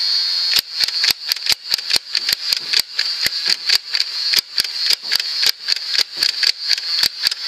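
Nerf Barricade's battery-driven flywheel motor whining steadily while the blaster is fired, with a fast run of sharp mechanical clicks from the trigger and turning cylinder, about four a second, starting about half a second in.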